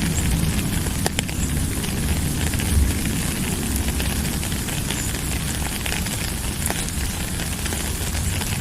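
Steady rain: a constant hiss with a deep rumble beneath it and scattered sharp clicks of drops, the loudest about a second in.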